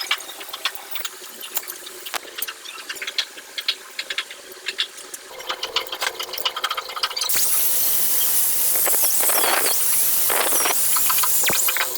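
Homemade angle-grinder milling rig running with a steady hum and light ticking. About seven seconds in, a loud hissing cut starts, with a wavering high squeal, and it stops about four seconds later.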